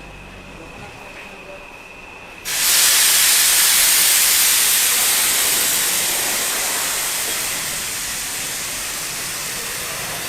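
A loud, steady hiss of a high-pressure jet, as from a workshop air blower or spray gun, starts suddenly about two and a half seconds in and eases off slightly over the following seconds.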